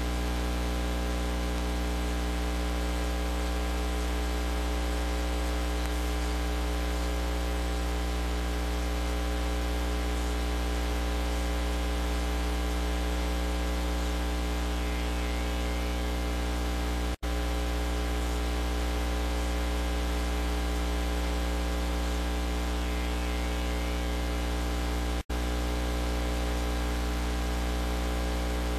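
Steady electrical mains hum, deep and unchanging, with a layer of hiss over it. The sound cuts out for an instant twice, about two-thirds of the way through and again near the end.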